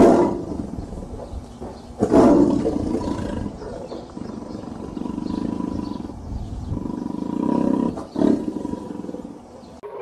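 Tiger roaring repeatedly: loud roars at the start, about two seconds in and again about eight seconds in, with a lower, drawn-out rumble between them.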